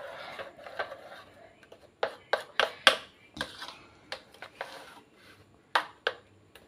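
A spoon stirring thick gram-flour batter in a bowl, with irregular clicks and taps of the spoon against the bowl's side, bunched together about two to three seconds in, and soft wet scraping between them.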